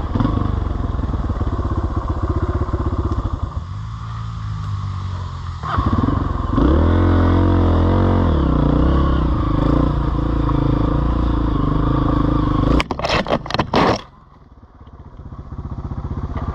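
Off-road vehicle engine running, its revs falling and then climbing high again. About thirteen seconds in comes a second of sharp clattering knocks. The engine sound then drops away and slowly builds back up.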